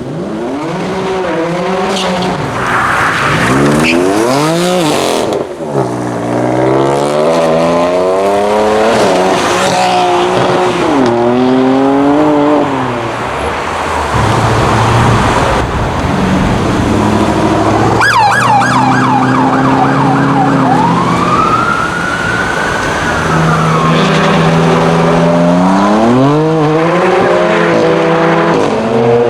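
A BMW M4 F82's twin-turbo straight-six accelerating hard. It revs up and shifts through the gears several times over, each pitch climb dropping back at the shift. About two-thirds of the way through, the tyres squeal in a high wavering tone as the car powerslides, then the engine revs up through the gears again near the end.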